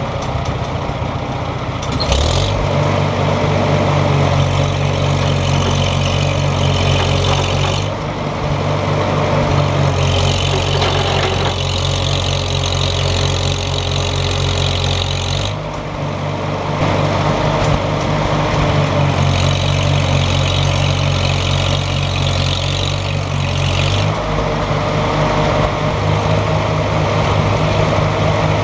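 A large vehicle engine running steadily, growing louder about two seconds in and changing its note several times as the revs or load shift.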